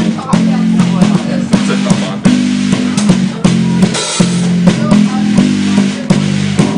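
Bass guitar playing held low notes that change every half second or so over a drum-kit beat with kick and snare, with a cymbal crash about four seconds in.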